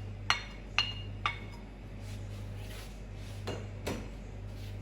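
A spoon tapping the rim of a cooking pot three times, about half a second apart, each a short ringing clink; two duller knocks follow a little before the end.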